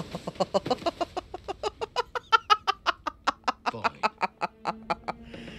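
A woman's long laugh in rapid, even bursts of about seven a second, loudest at the start and dying away about five seconds in.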